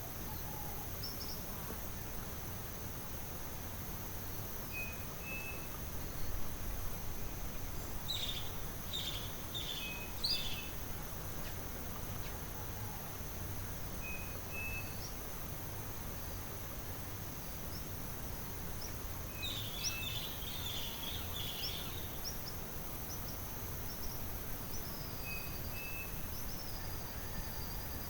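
Tropical forest ambience: a steady high insect drone, with one bird repeating a short two-note call every few seconds and two bursts of bird chirping, about eight and about twenty seconds in, over a low background rumble.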